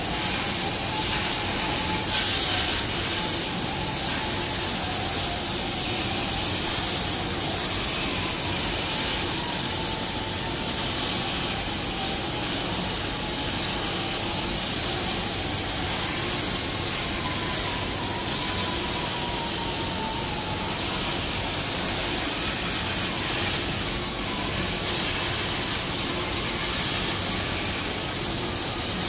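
CNC plasma cutter cutting through sheet steel: a steady hiss with a faint tone that wavers slowly in pitch.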